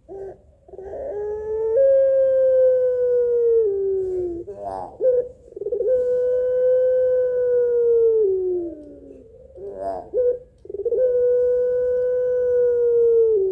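Hen Barbary dove (ringneck dove) of the long-voiced 'pelung' type giving three long, drawn-out, howl-like coos. Each coo is one held note that droops in pitch at its end, and short quavering notes come between them. This is the call of a hen calling for a male.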